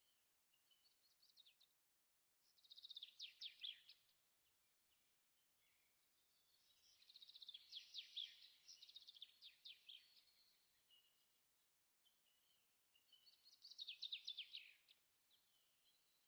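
Faint songbird singing in three trilled phrases of rapid high chirps, the middle one the longest, with the sound cutting out briefly about two seconds in.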